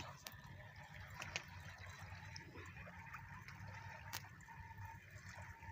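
Faint, quiet outdoor background: a low steady rumble with a few scattered light clicks.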